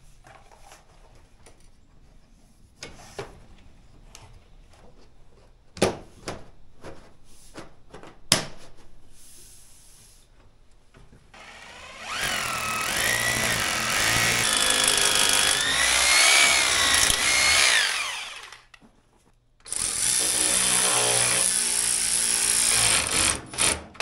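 A few light taps and clicks as plastic line-set cover pieces are fitted, then a handheld power drill runs twice for several seconds each. In the first run its whine rises and falls with the trigger, and in the second it runs steadily.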